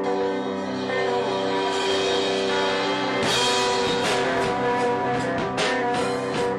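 Background music: rock with guitar and drums.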